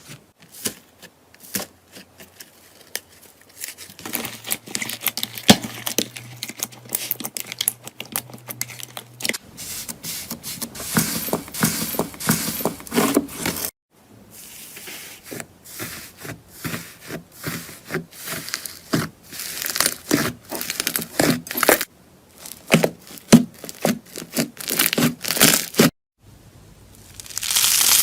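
Slime being squeezed, poked and stretched by hand, giving dense runs of small crackles, pops and sticky tearing sounds, in several short clips that cut abruptly from one to the next.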